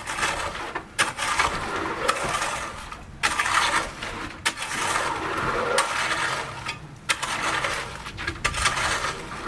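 Building-site work noise: repeated gritty scraping and clattering, in bursts of a second or two with short breaks between them.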